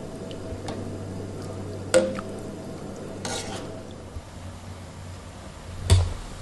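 Wire spider strainer stirring through a stainless steel pot of water and sausage pieces, knocking against the pot: two sharp metallic clinks, about two seconds in and near the end, and a short scrape in between.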